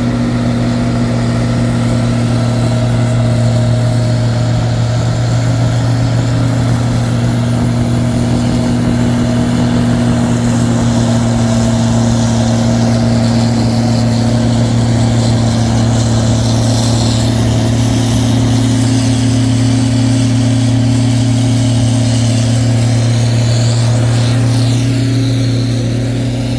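Heavy diesel engine running steadily under load as a loader-mounted Tenco snow blower throws snow into a dump truck, a constant low drone with the rush of the blower under it.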